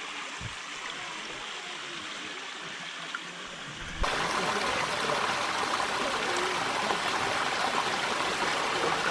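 Water running in a stream, a steady rushing trickle that jumps suddenly louder and brighter about four seconds in.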